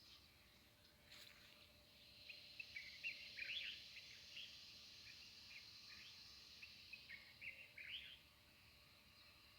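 Faint chorus of small songbirds chirping, many quick short chirps overlapping, busiest through the middle and thinning near the end, over a soft steady background hiss.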